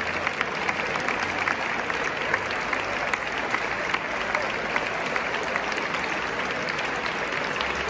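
Steady applause from a large group of people clapping, the choir among them.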